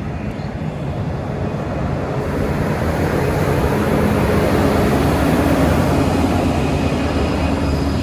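VIA Rail passenger train's diesel locomotive going by close at hand: engine drone over a steady rumble, growing louder to a peak around the middle and easing slightly near the end.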